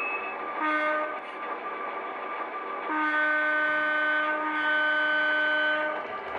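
HO scale model diesel locomotive's sound decoder sounding its horn through the locomotive's small speaker: a short blast about half a second in, then a long blast of about three seconds starting about three seconds in.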